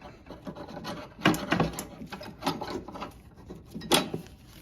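Mower rear wheel adjuster parts being handled and taken apart by hand: irregular clicks, knocks and rubbing, the loudest knocks about a second in and near the four-second mark.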